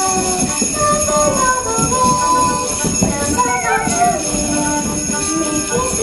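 A recorded song with a melody of held notes plays, while hand-held jingle bells and tambourines shake along without a break.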